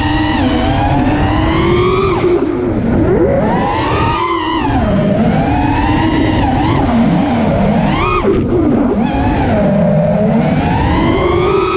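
FPV racing quadcopter's four Brotherhobby R4 2450kv brushless motors driving HQ 5x4.3x3 three-blade props, heard from the camera on the quad itself: a loud whine whose pitch swoops up and down with the throttle, with sharp rises about four and eight seconds in.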